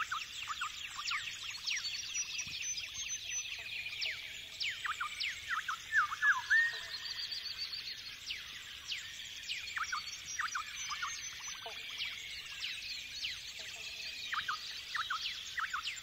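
A dense chorus of many wild birds, with quick falling whistles and chirps overlapping throughout: a recorded forest dawn-chorus soundscape used as the soundtrack.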